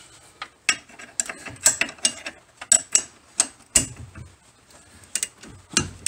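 Ratchet wrench clicking in short, irregular strokes with metal clinks of the socket and tools, as a bolt on the front sway bar is loosened.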